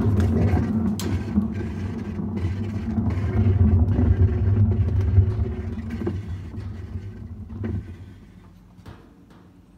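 Whirlpool Cabrio top-load washer drum spinning with a loud, low rumble and a few knocks, the rumble dying away about eight seconds in as the drum coasts to a stop.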